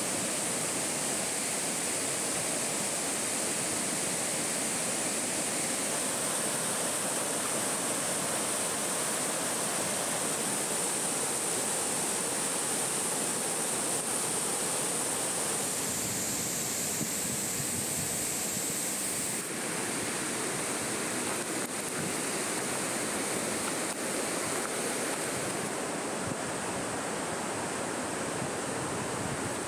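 River water rushing over rocks and boulders in whitewater rapids, a steady, even rushing sound.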